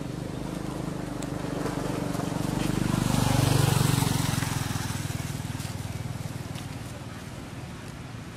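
A motor vehicle engine passing by, growing louder to a peak about three and a half seconds in, then fading away.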